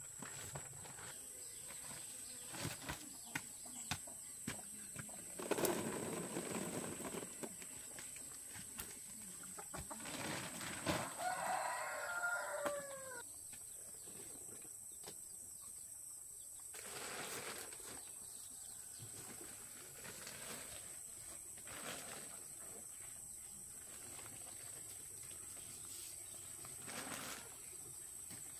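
Rustling and scattered light knocks, with a brief bird call of a few falling notes about halfway through.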